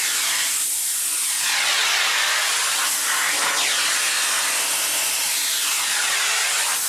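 Vacuum cleaner running: a steady rushing hiss of air drawn in through the floor brush, its tone sweeping up and down as the brush is moved over the carpet and the cat's fur.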